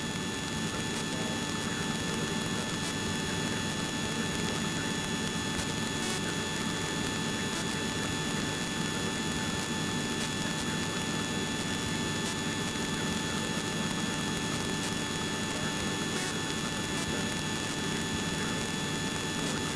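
Helicopter in flight: steady engine and rotor noise with hiss, and a few faint, steady whining tones over it.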